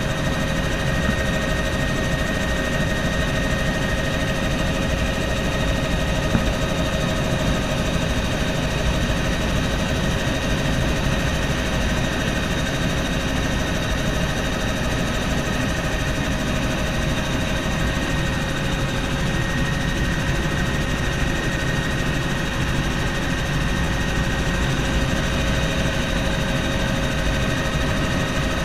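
Bell helicopter's engine and rotor heard from inside the cabin in cruising flight: a steady low drone with constant whining tones above it.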